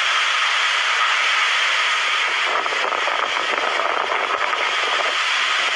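Typhoon-force wind and driving rain making a loud, steady rush.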